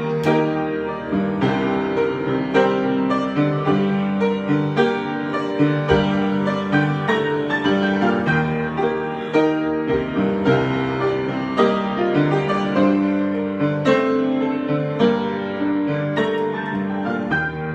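Solo piano improvisation: a steady flow of struck notes and sustained chords, with no pauses.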